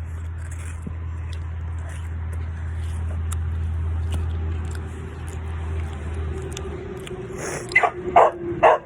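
Close-mic chewing of a fresh chocolate chip cookie: soft crunching and mouth sounds over a steady low hum that fades out about six and a half seconds in. Near the end come three short, loud sounds in quick succession.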